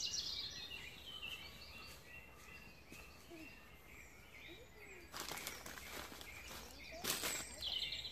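Woodland birdsong: many small birds chirping and singing. There are two brief bursts of close noise, about five and about seven seconds in.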